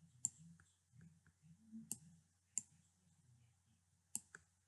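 Computer mouse clicking as strokes are drawn in a paint program: about five sharp, irregularly spaced clicks over near silence.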